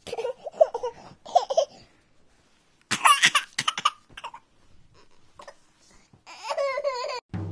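High-pitched laughter in three short bouts with pauses between, the last a quick run of 'ha-ha-ha' pulses.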